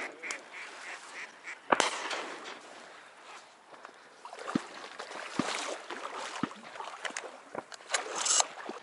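Ducks quacking in short, scattered calls, with one sharp knock about two seconds in.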